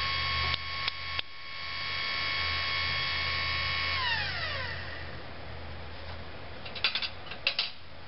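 Electric motor of a 24-volt battery-powered backhoe running with a steady whine, then winding down in pitch about four seconds in. A few sharp clicks in the first second and a half and a quick cluster of clacks near the end.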